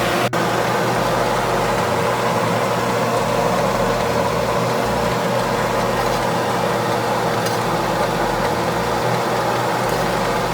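Bok choy cooking in a hot pot over a gas burner: a steady, even rushing noise that holds at one level throughout.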